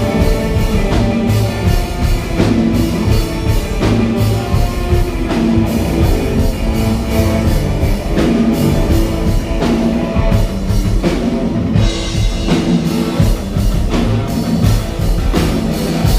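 Rock music played on drum kit and guitar, with a steady beat of drum hits.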